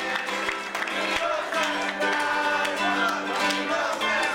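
Acoustic guitar strummed live, with voices singing along.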